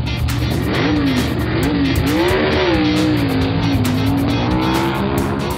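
Cartoon monster truck engine sound effect revving, its pitch rising and falling several times, over background music.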